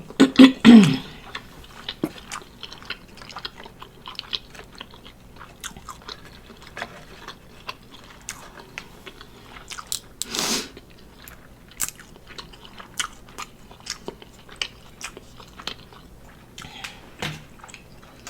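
Close-miked eating of a seafood boil: a person chewing and biting, with many small wet clicks and crunches scattered throughout. A brief vocal sound comes at the very start, and one short, louder noisy sound about ten seconds in.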